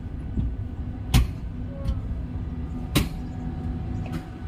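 Steady low machinery hum, with two sharp knocks about a second in and three seconds in, and a fainter one near the end.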